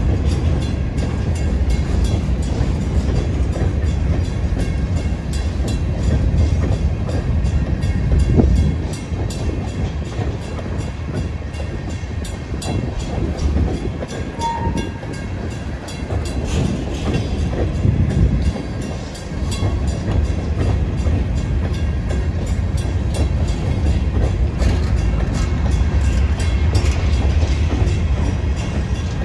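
Freight train of hopper cars rolling past close by: a steady low rumble of steel wheels on rail, with the wheels clicking over rail joints throughout. There is a short high squeak about halfway through.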